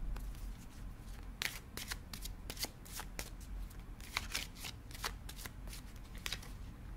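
A tarot deck being shuffled by hand: a string of light, irregular card clicks.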